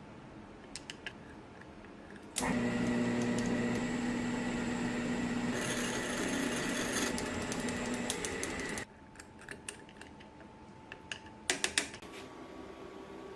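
An electric power tool's motor is switched on about two seconds in and runs steadily with a constant hum. Partway through it takes on a harsher, brighter edge, as if cutting into the work, and it cuts off suddenly after about six seconds. Light clicks and taps of handling come before and after, with a short cluster of sharp clicks near the end.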